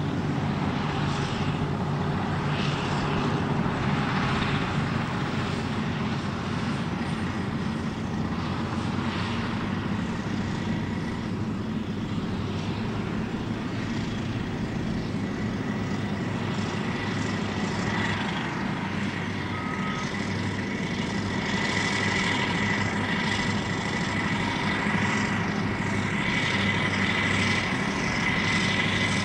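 Heavy earthmoving machines at work: the diesel engines of a crawler dozer and Cat 637 twin-engine scrapers running steadily under load. A thin, steady high whine grows stronger over the last several seconds.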